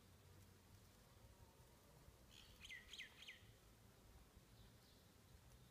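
Near silence outdoors, broken about two and a half seconds in by a faint bird call: three quick whistled notes, each sliding down in pitch.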